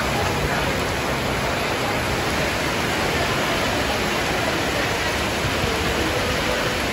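Heavy downpour on a flooded street, rain and rushing floodwater together making a steady, even hiss.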